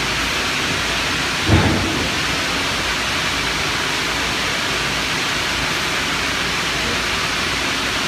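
Steady, loud hiss of factory background noise, with a single low thud about one and a half seconds in.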